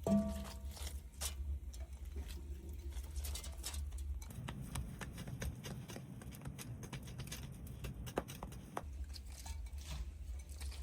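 Light, irregular tapping and clicking, with a short ringing clink right at the start.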